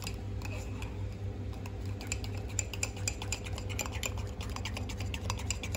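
A spoon stirring thick chocolate mug-cake batter, clicking and scraping against the sides of the mug in quick, irregular strokes.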